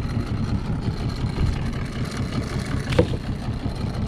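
Small outboard motor running steadily at low speed on a fishing boat, with one short knock about three seconds in.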